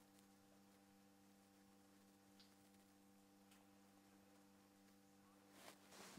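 Near silence: room tone with a faint steady hum, and a brief faint rustle near the end.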